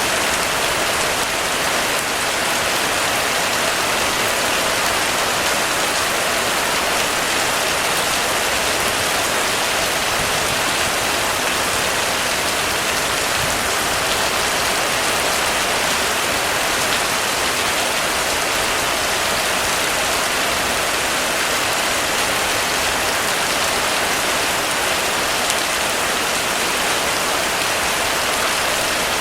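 Heavy rain falling steadily on a roof: a dense, even hiss of countless drops with no single impacts standing out.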